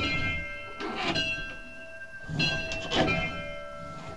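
Bells rung full-circle on ropes, struck one after another so that each bell's note hangs on and overlaps the next; a fresh strike comes about every second.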